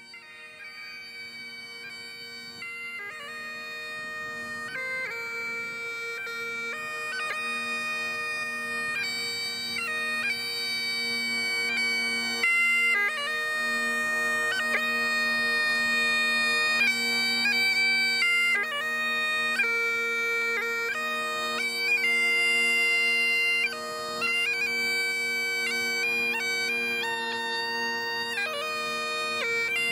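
Bagpipes playing a melody over steady drones, growing louder over the first few seconds.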